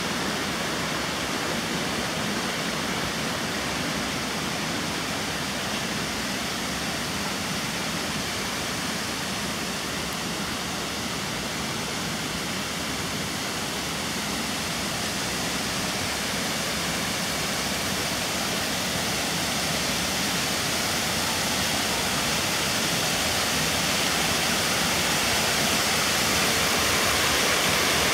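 Rushing water of a shallow, rocky mountain stream spilling over a small stepped cascade, a steady hiss that grows louder near the end.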